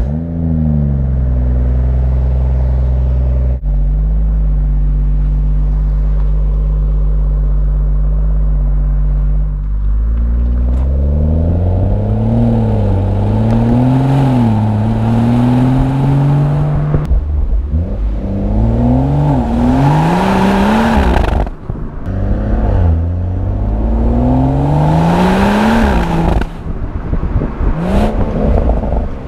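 BMW M140i's B58 3.0-litre turbocharged straight-six heard at the exhaust: it fires up and holds a raised, deep-burbling start-up idle for a few seconds before settling to a lower steady idle. Later it runs under load, its pitch rising and dropping over and over as it accelerates and changes gear.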